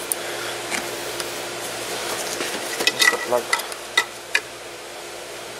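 Hands working on a newly fitted car horn and its wiring under the front bumper: light scraping and rattling with a few sharp plastic clicks, the loudest about three and four seconds in, over a steady background hiss.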